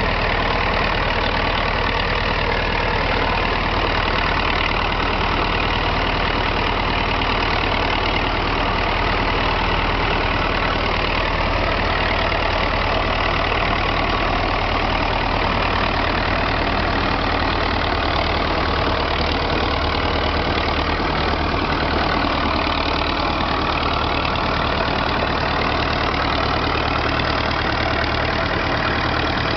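Fiat 55 L crawler tractor's engine running steadily under load as it pulls a plough.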